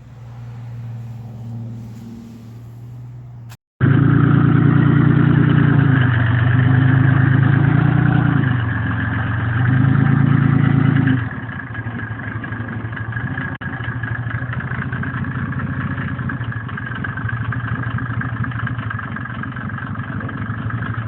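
A vehicle engine running steadily, then, after a brief cut, louder and revved up and down a few times. Just past the halfway point it settles into a steady idle.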